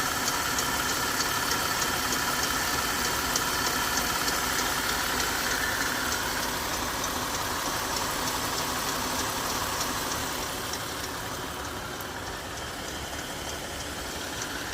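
2018 Jeep Grand Cherokee's 3.6-litre Pentastar V6 idling steadily with a light, regular ticking from the valvetrain. The owner suspects the tick comes from the rocker arms or lifters, seemingly on the passenger side.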